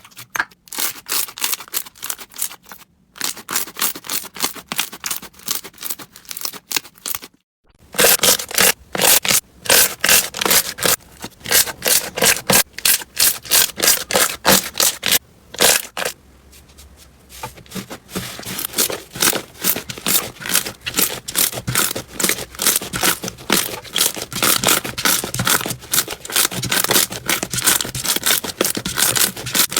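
Slime being squeezed and pressed by hand, giving fast runs of crackling, popping clicks, with brief breaks about three and seven seconds in and a quieter stretch about halfway through.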